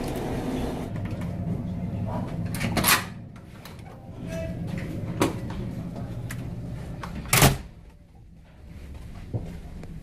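Interior door being opened by its metal lever handle and swung shut, with several sharp knocks and clicks and one louder clunk about seven seconds in, over a steady low hum.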